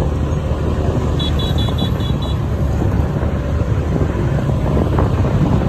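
Steady low rumble of road traffic and wind on the microphone from a moving vehicle, with a quick run of short high beeps a little over a second in.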